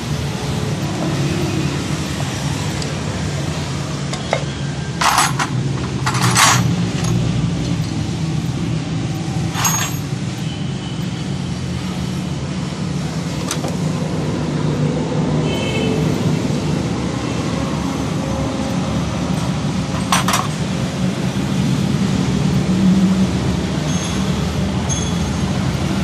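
Metal hand tools clinking a few times during valve tappet adjustment on a 70cc motorcycle engine, the clearest clinks about five, six, ten and twenty seconds in, over a steady low rumble of vehicle noise in the background.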